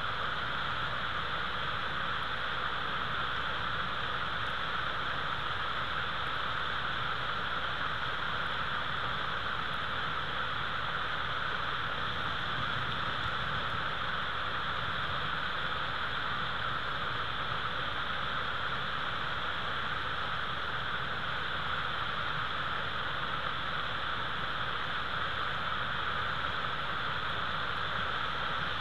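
A steady, unchanging hiss with no separate sounds in it.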